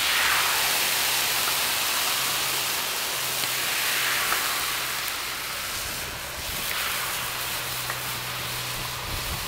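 Tortillas dipped in oily braising liquid sizzling on a hot flat-top griddle, a steady frying hiss. A faint steady low hum runs underneath.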